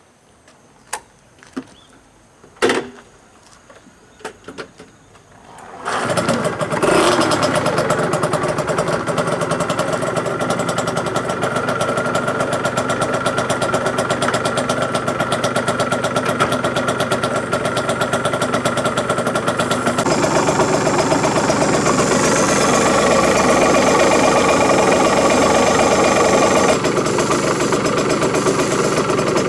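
A few clicks and knocks, then about six seconds in a Yamaha TZM50R's 50 cc two-stroke single starts, revs briefly and settles into a steady, loud, buzzy idle. It is running with an odd noise that the owner puts down to the cut-off relay.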